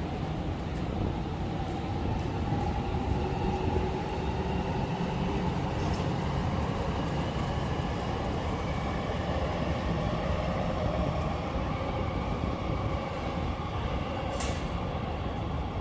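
A train running past, a steady heavy rumble with a faint whine that slowly rises in pitch, and a single sharp click near the end.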